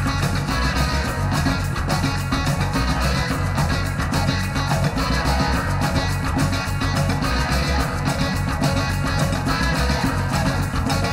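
Psychedelic rock band recording: electric guitar, bass and drums playing a dense, loud passage with steady drum hits.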